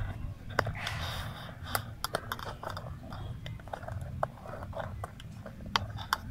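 Scattered small clicks and taps with a brief rustle about a second in, from parts and the camera being handled, over a low steady rumble.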